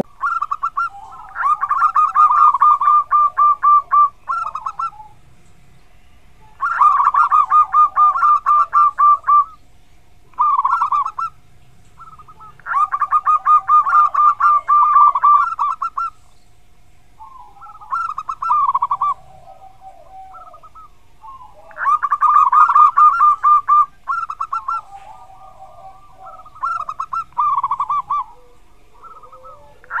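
Zebra dove (Indonesian local perkutut) singing loud, rapid staccato cooing phrases, each one to three seconds long, repeated about seven times with short pauses between.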